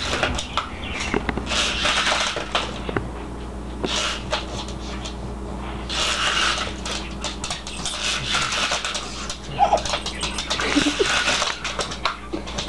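Scattered clicks and taps on a wooden floor, with short bursts of breathy hissing every couple of seconds, from a black pug moving around and nosing a small toy RC helicopter that lies grounded on the floor.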